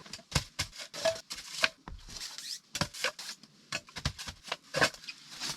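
An irregular string of sharp knocks and clicks with rustling between them. Pieces of wood are being set down and handled to build a base under a propane heater on a wet tent floor.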